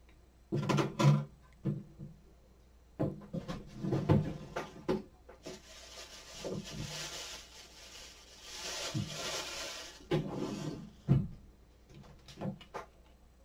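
Kitchen handling sounds: scattered knocks and scraping of utensils and cookware, with a stretch of steady hiss in the middle.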